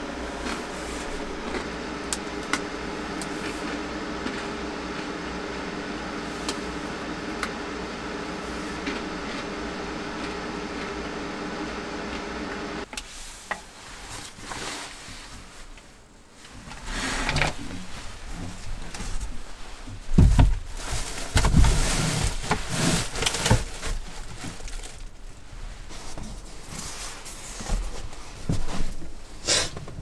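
Steady hum of a vehicle interior with a faint whine in it, then, from about 13 seconds in, irregular thuds, knocks and rustling of things being handled in a small enclosed space, with a few heavy low thumps.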